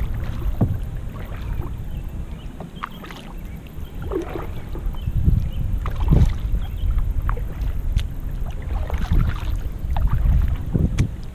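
Kayak paddle dipping and splashing in calm lake water, with drips falling from the blade between strokes, over a low steady rumble of wind on the microphone.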